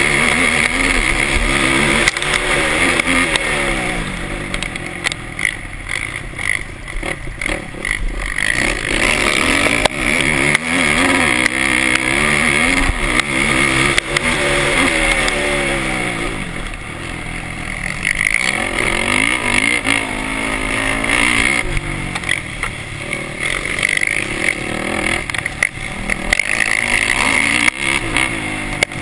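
Racing quad (ATV) engine heard on board, revving up and dropping back again and again as the rider accelerates, shifts and backs off for corners. It eases off twice, about four seconds in and again around sixteen seconds, before climbing back up.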